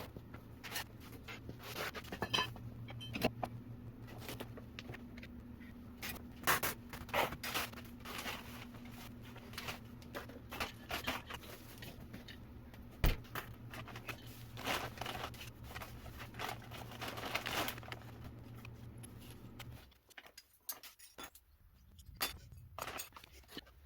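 Irregular clicks, knocks and scrapes of objects being handled, over a steady low electrical hum that stops about twenty seconds in.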